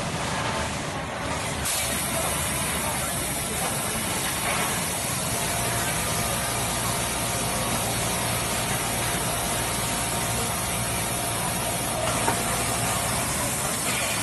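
Steady running noise of an automatic tubular bottom-hemming sewing machine and the sewing floor around it: a continuous mechanical hum with a high hiss that comes in about two seconds in.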